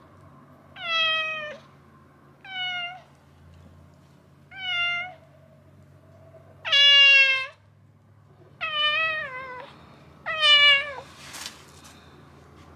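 A sick tabby cat meows six times in protest while held down for treatment, about one call every two seconds. Each call drops in pitch at the end, and the fourth is the loudest and longest.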